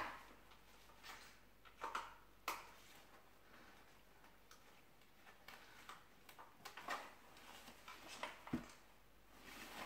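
Faint, scattered clicks and small knocks from an AK-74 airsoft replica being handled while a quick-detach sling swivel is fitted to it, with a soft thump near the end.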